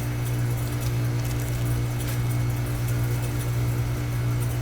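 Residential central air conditioner's outdoor unit running, a steady low hum from the compressor and condenser fan.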